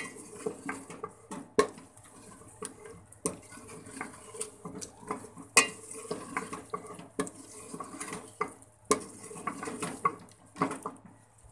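A spoon stirring and scraping chicken and spice masala in a metal cooking pot, with irregular clicks and knocks of the spoon against the pot, the sharpest coming every second or two. The spices are being fried down with a little added water.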